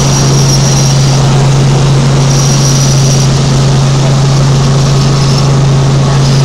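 Helicopter engine and rotors running steadily in flight, heard from inside the cabin: a loud, unbroken drone with a strong low hum and a faint high whine that comes and goes.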